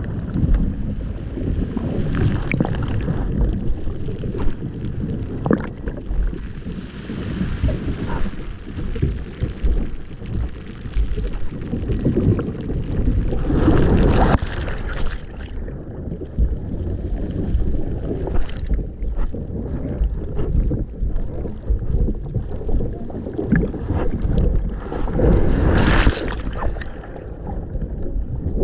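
Jet ski running across choppy water, its engine and hull rumbling, with wind on the microphone and two louder rushes of noise, about halfway through and near the end.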